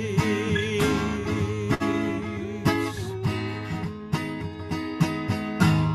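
Acoustic guitar strumming the closing chords of a worship song, under a held sung note with vibrato that fades in the first second. The strums grow louder near the end, then stop abruptly.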